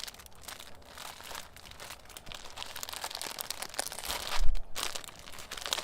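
Packaging crinkling and rustling as fabric pieces are handled and unwrapped, with a dull thump about four and a half seconds in.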